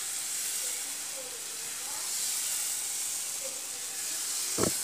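Thin semolina dosa batter sizzling with a steady hiss as it is poured in rings onto a hot tawa. A single sharp knock near the end.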